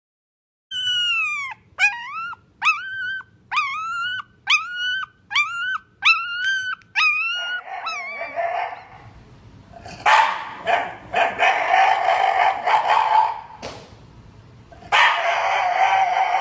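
A Shiba Inu vocalizing: first a run of about eight short, high-pitched whining calls, each dropping and then rising in pitch, then rougher, throatier drawn-out grumbling in long stretches with pauses.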